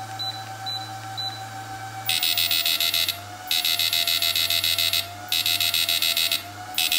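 Samus 3000G electrofishing inverter firing its output into a bank of light bulbs as a test after repair: a loud, high-pitched rapid buzz in four bursts of about a second or more each, starting about two seconds in. Before that, the handheld controller beeps three times as its buttons are pressed, and a steady hum from the unit runs underneath.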